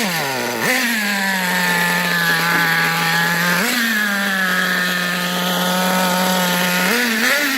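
Small two-stroke glow-fuel engine of a nitro RC car running at a fast, steady idle, blipped up briefly twice, then revved up and down a few times near the end.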